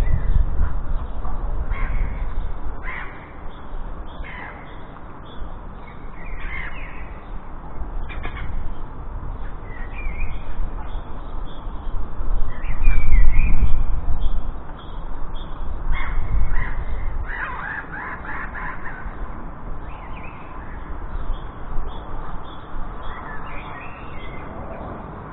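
Jackdaws calling, short harsh calls scattered irregularly through, over a low rumble that swells at the start and again about halfway through.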